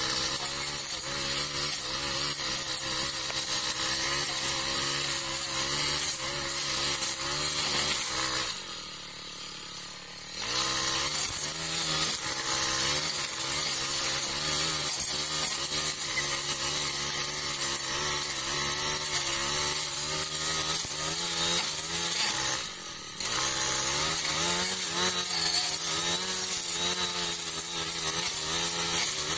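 Honda GX four-stroke backpack brush cutter running at high revs, cutting through overgrown brush, its engine note wavering under load. The revs drop off for about two seconds some eight seconds in, then pick up again, with another brief dip about two-thirds of the way through.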